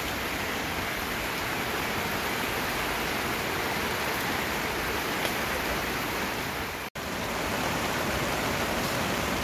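Fast-flowing river rushing over rocks, a steady wash of water noise. The sound drops out completely for an instant about seven seconds in.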